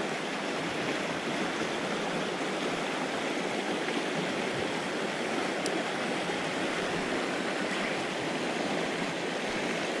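Shallow mountain stream running over rocks and stones: a steady rush of water.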